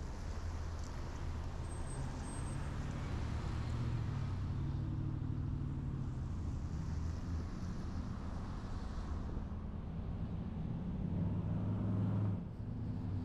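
A car driving, with a steady low engine and road rumble; the engine note rises and falls, climbing toward twelve seconds in and then dropping away suddenly.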